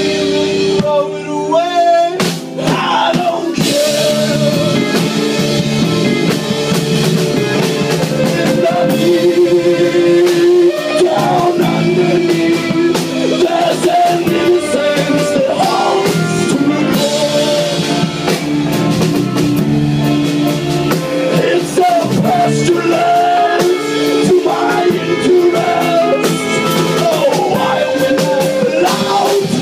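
Live rock band playing electric guitars and a drum kit.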